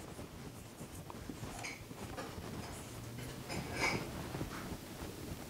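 Marker pen writing on a whiteboard: a series of short, faint strokes as digits are written, the loudest about four seconds in.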